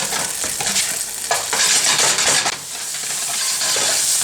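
Rice noodles in sauce sizzling in a hot pan as they are stirred and tossed, with a steady frying hiss and repeated scraping knocks against the pan.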